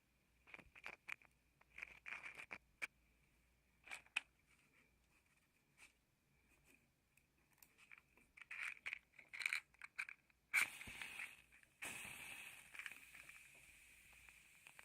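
Matches being handled, with small ticks and rustles. Then a match is struck sharply about ten and a half seconds in, and another strike follows with a hiss of burning lasting a couple of seconds.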